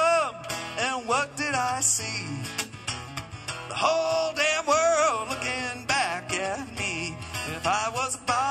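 Live solo acoustic music: acoustic guitar playing, with a melody line that bends up and down in pitch.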